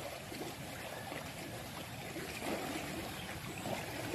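Faint wet shuffling and small knocks of a hand moving among freshly caught fish in a plastic bucket, over a steady hiss like running water.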